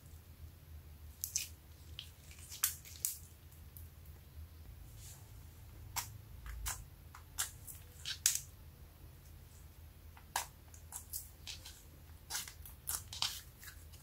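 Metallic glitter slime being squeezed, stretched and poked by fingers, giving irregular sharp sticky clicks and pops, a dozen or more scattered throughout, over a faint steady low hum.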